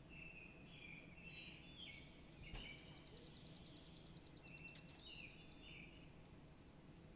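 Birds chirping faintly with repeated short chirps, joined about three seconds in by a fast, high trill that lasts about two and a half seconds. A single sharp click comes just before the trill.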